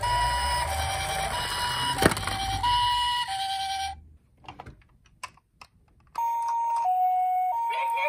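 Toy HIMEDIC ambulance's electronic two-tone "pee-po" siren, a high and a lower note alternating about every half second, over the low rumble of the toy rolling on a wooden board, with a knock about two seconds in. The siren stops about four seconds in, leaving a few soft clicks, and starts again about six seconds in.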